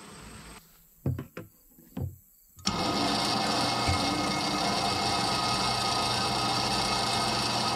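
Electric fuel transfer pump on a diesel storage tank switching on and running steadily, with a low hum and a high whine, as it pumps diesel through its filter and out the nozzle into a fuel can. Just before it starts, a few sharp knocks.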